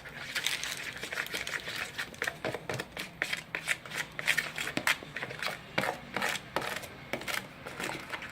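Slime being mixed: a steady run of irregular small sticky clicks and squelches, several a second.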